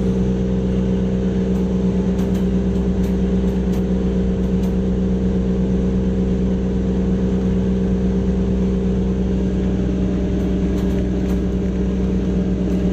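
A fishing boat's engine running steadily while under way at about 8 knots, heard inside the wheelhouse as a constant, even-pitched drone.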